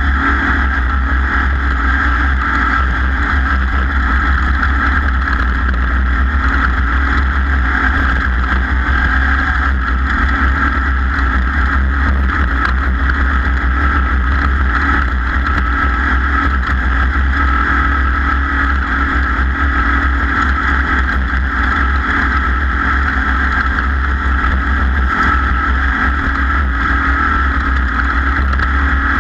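A racing engine running at a steady high speed with a continuous rushing noise, holding an even pitch without revving up or down.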